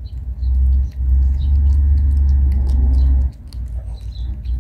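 Cat chewing food with small repeated clicking bites, over a loud low rumble that sets in about half a second in and drops away after about three seconds.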